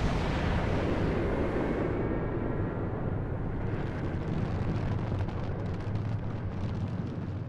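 Deep, noisy roar of the Mirage volcano's eruption show as its fire bursts die down, with faint crackling, beginning to fade near the end.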